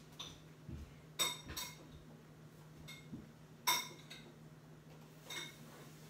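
A few light, sharp clinks of small hard objects, each with a brief ringing tail, the loudest a little past halfway, over a faint steady low hum.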